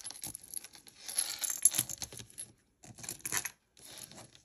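A beaded necklace being handled: acrylic faceted beads and metal chain clicking and rattling against each other, with some rustling, in two or three busy spells.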